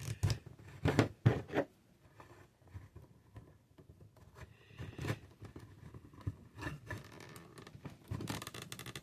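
Hard plastic action-figure parts being handled: a few sharp clicks and knocks, strongest in the first two seconds, then lighter scraping and tapping as small weapons are pushed into the figure's hands.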